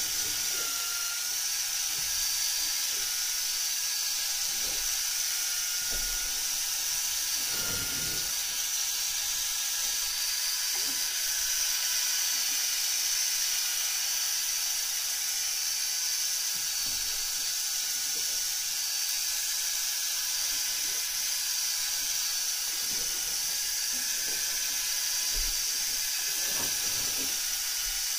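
Electric fishing reel running, a steady high whir with hiss as its spool turns.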